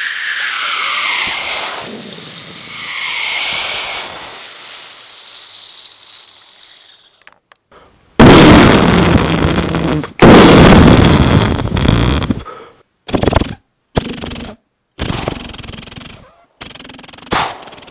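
Mouth-made imitation of battle sounds: a falling whistle and hissing whooshes, then two long loud blasts like explosions about eight and ten seconds in, followed by four short bursts like gunfire, each cut off sharply.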